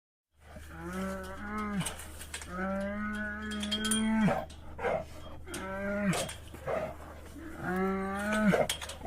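Andean bear calling: a series of drawn-out, moan-like pitched calls, about four in all, the second the longest, each dropping in pitch at its end. Short breathy sounds fall between the calls, over a steady low hum.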